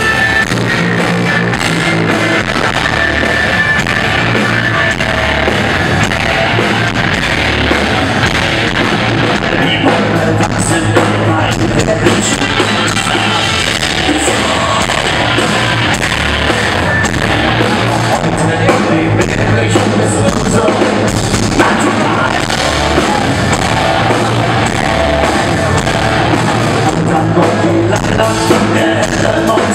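Medieval folk-metal band playing live, with electric guitar, drums, bagpipes and a male singer. It is recorded from the crowd with poor, loud, crowded sound.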